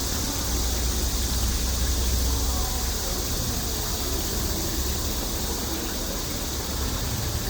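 Steady outdoor noise: an even rushing hiss over a low rumble, with faint children's voices in the background.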